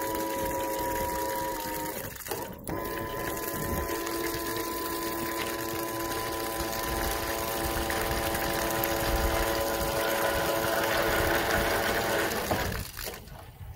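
Small electric bilge pumps humming steadily as they pump test water out of an aluminium jon boat's hull, with water gushing from the hull-side outlets. The hum breaks off briefly about two seconds in and stops shortly before the end.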